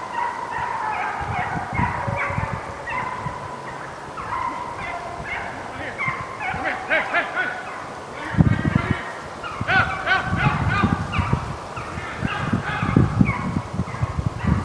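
A pack of deer hounds baying and chopping on a deer's trail, many voices overlapping in quick, broken calls. From about halfway through, low rumbling thumps hit the microphone.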